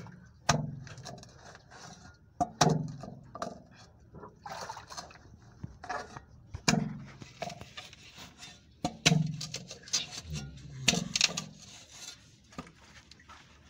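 Spade blade chopping into the tree roots that block a sewer manhole: a series of sharp, irregularly spaced strikes, sometimes two in quick succession.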